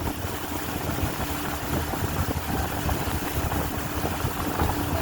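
Small boat's motor idling steadily with a constant low hum.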